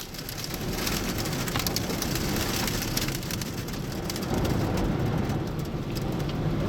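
Wind-driven rain beating on a vehicle in a storm's rear-flank downdraft: a dense rushing noise with many sharp ticks of hits on the body and glass, building over the first second.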